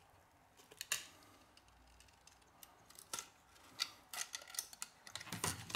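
Faint scattered clicks and crackles of a Xiaomi Mi 5C's broken screen assembly being pried off its frame with a plastic spudger, with a denser run of crackling near the end as the two come apart.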